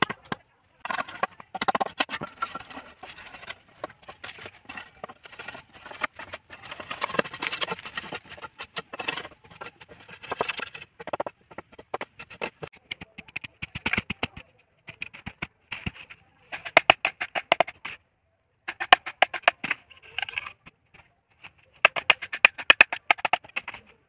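Machete blade scraping and cutting bamboo by hand: rapid runs of short dry clicks and scrapes, coming in bursts with brief breaks between them.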